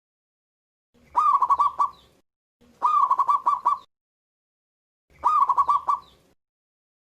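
Local Indonesian zebra dove (perkutut) singing three phrases. Each phrase is one rising note followed by a quick run of short, clipped coos.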